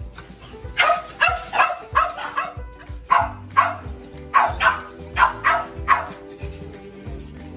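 French bulldog puppies yipping and barking in play as they wrestle, a dozen or so short, sharp calls in quick succession, over background music.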